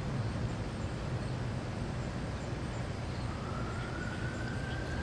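Steady outdoor background noise with a low hum, and a faint single tone that rises slowly from about three seconds in.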